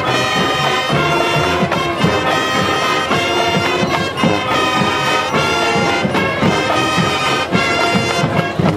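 High school marching band playing: brass section sounding sustained chords and melody over a steady low drum pulse.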